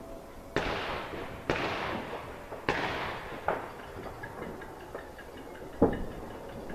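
Fireworks going off for New Year: three bangs in quick succession, each trailing into about a second of fading crackle and hiss, then two smaller sharp pops.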